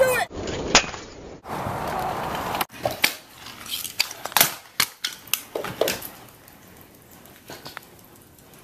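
Stunt scooter wheels rolling on concrete, with the deck and wheels clacking down in several sharp knocks as tricks land. The sound changes abruptly between short clips.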